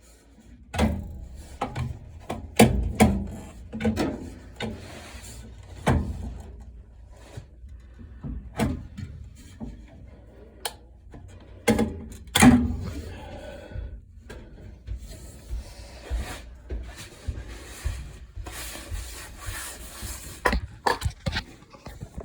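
Irregular knocks, clicks and scraping of hands and tools working on a furnace's ECM blower motor and its module, with a longer stretch of rubbing and scraping near the end.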